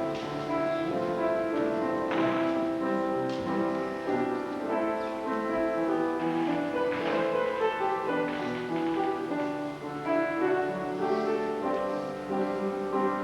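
Instrumental music: sustained chords changing step by step, with a piano or keyboard prominent.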